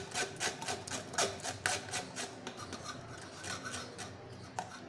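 Steel spoon scraping and pressing wet mango pulp through a stainless steel mesh strainer: a run of irregular rasping strokes that thin out after about halfway.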